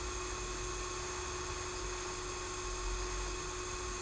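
Steady hiss and electrical hum with several faint constant whining tones, the background noise of the narration recording.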